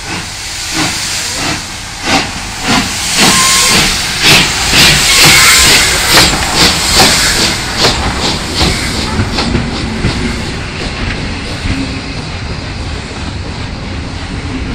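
PKP Ol49 two-cylinder steam locomotive working past at close range: exhaust chuffs about two a second over a steady steam hiss, the beats getting slightly quicker and loudest as the engine goes by. After about ten seconds the chuffs fade and the passenger coaches roll past with a lower rumble.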